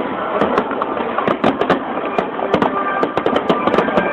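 Aerial fireworks shells bursting in quick succession: a rapid, irregular run of sharp bangs and crackling.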